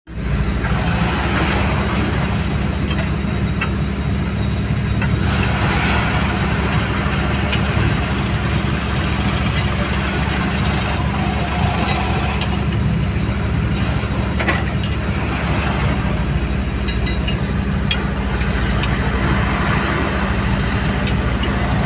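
Diesel engine of a tracked heavy machine running steadily at idle close by, a low continuous rumble. A few sharp light metal clicks sound now and then, mostly in the second half.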